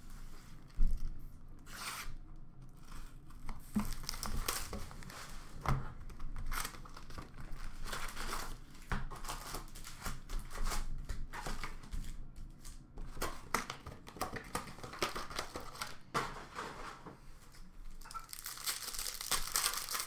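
Plastic wrap being cut and torn off a sealed hockey card box, then foil card packs crinkling and tearing as they are handled, with many sharp clicks and scratches. The crackling is densest near the end.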